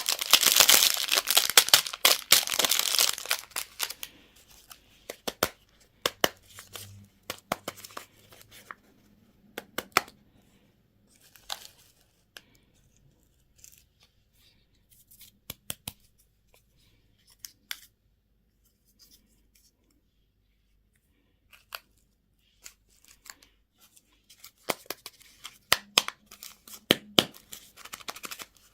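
Candy or toy packaging being torn open and crinkled by hand. A dense burst of tearing lasts the first few seconds, followed by scattered light clicks and rustles with quiet gaps between them.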